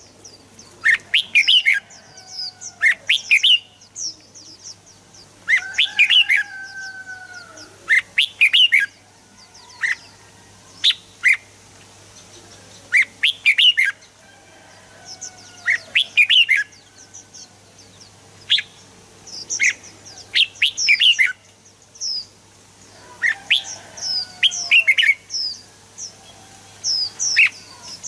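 Red-whiskered bulbul singing: short bursts of quick, chirpy whistled notes, repeated every second or two. A faint steady hum runs underneath.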